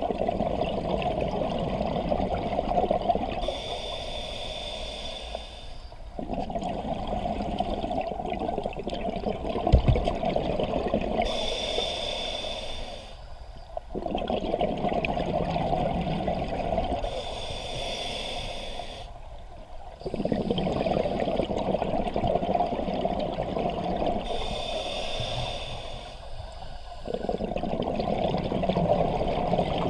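Scuba diver breathing through a regulator underwater: slow, regular breaths, each a short inhale through the demand valve with a thin high tone, followed by a longer rush of exhaled bubbles, about four breaths in all.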